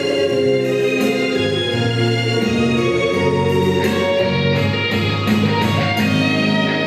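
Recorded instrumental music accompanying a Japanese dance, with sustained chords and held notes.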